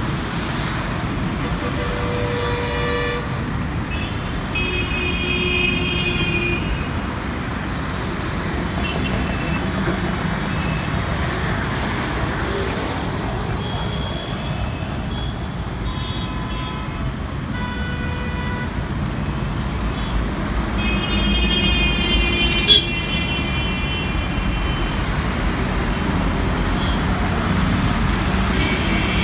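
Busy road traffic of motorbikes, scooters, auto-rickshaws and cars running steadily, with vehicle horns honking several times throughout. A single sharp click stands out shortly after the middle.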